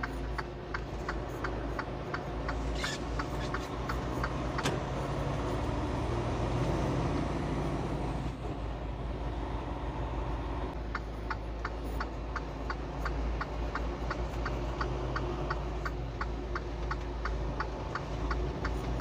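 Truck cab with the engine running steadily under a haze of rain and road noise. A turn signal clicks quickly and evenly for the first few seconds, stops, and starts again about eleven seconds in.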